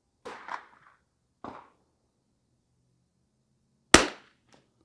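A single shot from a Lithgow LA-101 .22 LR bolt-action rifle fitted with a Harrell tuner, about four seconds in, with a short fading tail. A few faint short sounds come before it.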